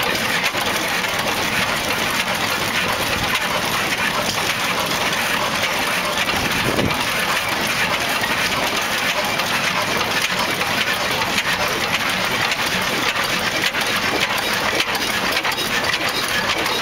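Vintage Hornsby-Ackroyd hot-bulb oil engines running: a steady mechanical clatter with many light, metallic clicks.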